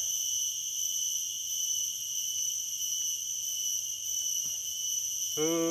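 Steady, high-pitched insect chorus of crickets or similar insects, a continuous shrill ringing at several pitches at once, without a break.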